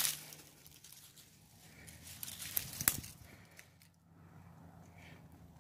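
Rustling and crunching in dry fallen leaves, louder between about two and three seconds in, with one sharp click near the end of that stretch.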